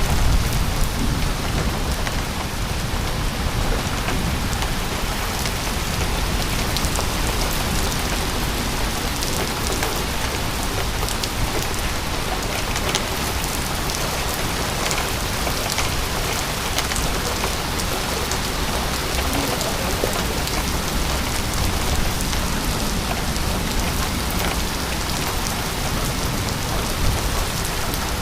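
Rain falling steadily during a severe thunderstorm, with scattered drop ticks and a low rumble underneath.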